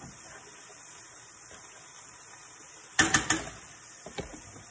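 Pork chops frying in a skillet with a steady sizzle. About three seconds in comes a quick clatter of metal utensils against the pan, three or four hits, then a couple of lighter clicks.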